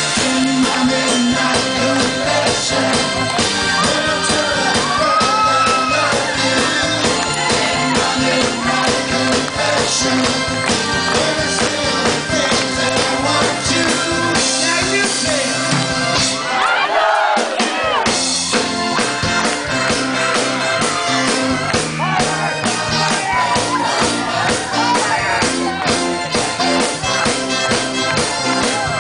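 Live rock band playing loudly: a man singing lead over electric bass guitar, drums and cymbals, with a brief break in the bass and drums about two-thirds of the way through.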